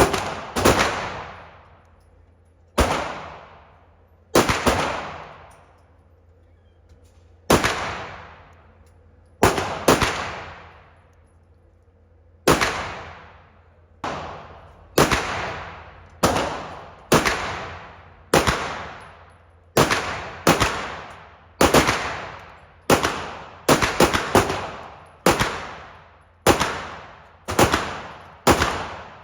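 CZ Czechmate competition pistol being fired, about thirty single shots in all, each followed by a short ringing echo. The shots come a couple of seconds apart at first, then pick up to a steady pace of one or two a second.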